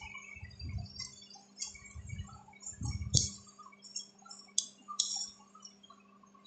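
Three sharp computer-mouse clicks over a steady low electrical hum, with scattered faint high chirps and a few low bumps.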